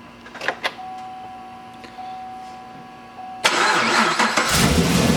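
A car being started: two clicks, then a steady high tone. About three and a half seconds in, the starter cranks loudly and the engine catches about a second later, settling into a steady idle.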